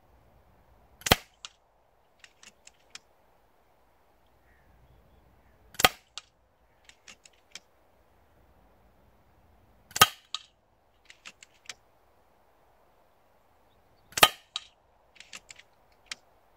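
Four shots from an FX Impact Mk II PCP air rifle, sharp reports about four seconds apart, each followed by a few quieter clicks as the action is cycled for the next pellet.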